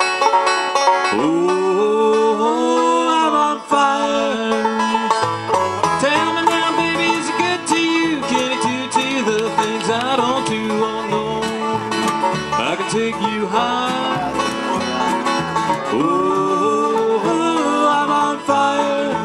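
Acoustic bluegrass band playing an instrumental break: five-string banjo picking over acoustic guitar, with upright bass notes coming in about five seconds in.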